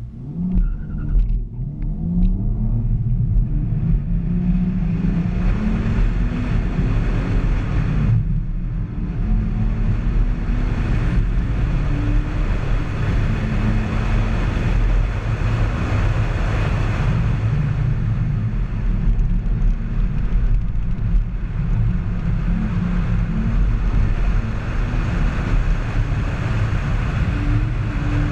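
Car engine launching and pulling hard in an autocross run, its pitch climbing over the first few seconds, then running loud and steady at high revs, with a brief lift about eight seconds in.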